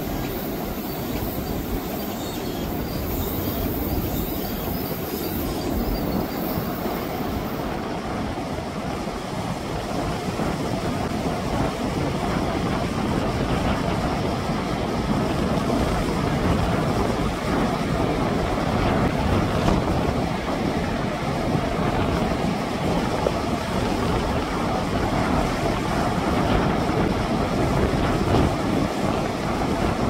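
Heavy surf breaking and churning over rocks: a continuous roar of waves, getting a little louder partway through. The sea is running high from a typhoon's swell.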